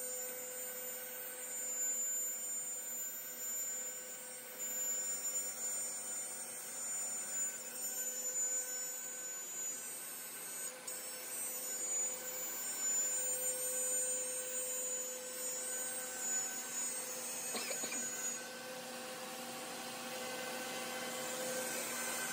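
Homemade CNC router's spindle running steadily with a whine as it mills a black HDPE plastic sheet, with a shop vacuum running to suck up the chips.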